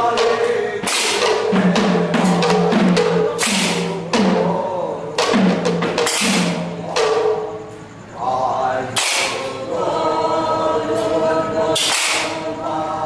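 Two-headed barrel drums played by hand by dancing drummers: a rapid pattern of sharp strokes with low gliding bass tones, over a group of voices singing.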